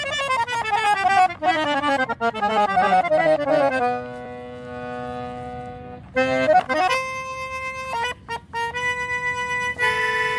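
Piano accordion playing solo: a long run of notes falling in pitch, a held chord, a quick rising run about six seconds in, then sustained chords broken by a couple of brief stops.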